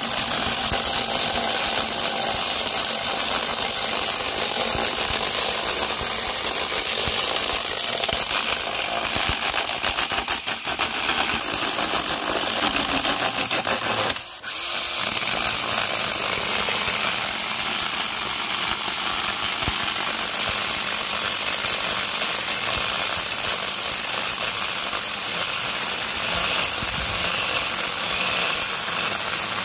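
Parkside PAHE 20-Li A1 20 V cordless pole pruner running, its electric-driven chain cutting through tree branches. The sound is loud and steady, with one brief break about halfway through.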